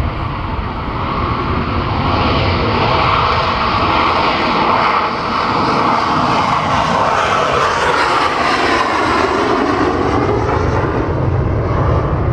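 Fighter jet in display flight, its engine noise loud and swelling, with a sweeping shift in tone about eight seconds in as it passes.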